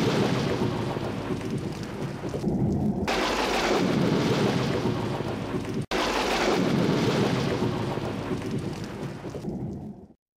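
Thunder sound effect: long rolling rumbles that break off and restart abruptly about six seconds in, then fade out just before the end.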